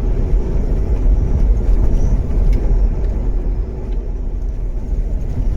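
Steady low rumble of a car's engine and tyres on the road, heard from inside the cabin while driving and towing a toy hauler trailer.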